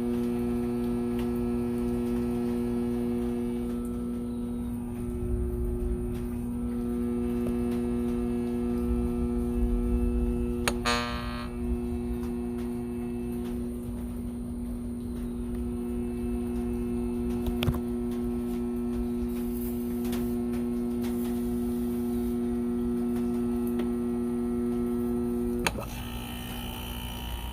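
Arctic King window air conditioner's compressor giving a loud, steady electrical buzz, which cuts off suddenly near the end.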